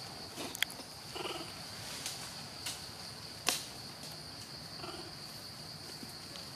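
Baby macaque sucking on a feeding bottle: short soft sucking noises about a second in and again near five seconds, over a steady high insect drone. A sharp click about three and a half seconds in is the loudest sound.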